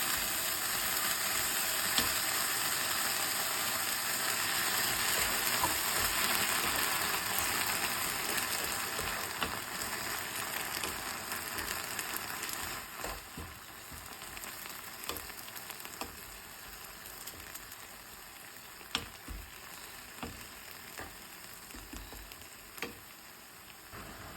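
Anchovies and chillies sizzling in a frying pan as they are stirred. The sizzle fades away over the second half, leaving scattered clicks and knocks of a utensil against the pan.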